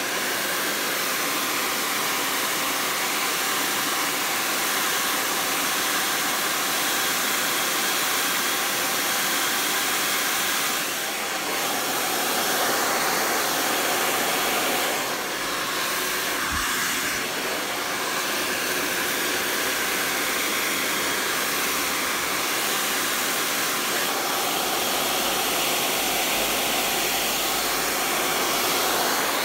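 Hair dryer blowing steadily, its level dipping briefly twice.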